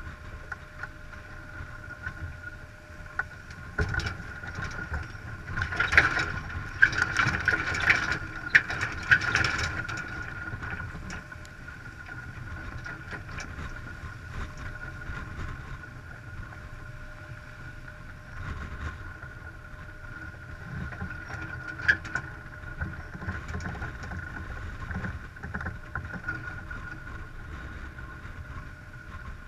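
Sailing yacht under way: water rushing along the hull with wind on the microphone. A louder spell of sharp clicks and knocks from about four to ten seconds in, and one more click near the end of the first two thirds.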